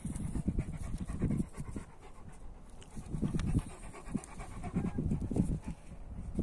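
Large black-masked Karabash-type shepherd dog panting hard and close up, in uneven pulses of breath.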